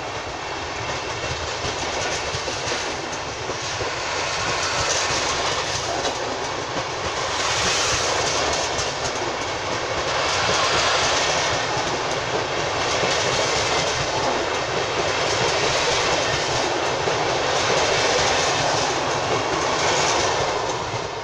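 Vintage Rheingold passenger coaches rolling past on departure, a steady rush of wheel and running noise that grows louder as the train gathers speed, swelling about every two and a half seconds, and drops away at the very end as the last coach passes.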